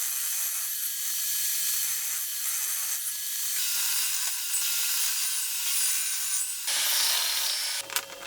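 A tool scraping across wood with a steady rasping noise that changes character about halfway through and again near the end, followed by a few sharp clicks.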